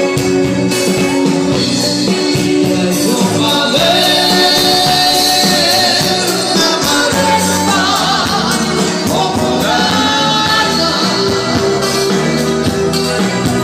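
Live Romani band playing: drum kit with a steady beat, electric bass guitar and keyboard, with a singer's voice over them.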